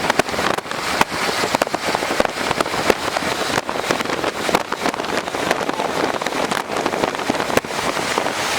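Dense, irregular crackle of precipitation pelting the chase vehicle in the storm around a tornado.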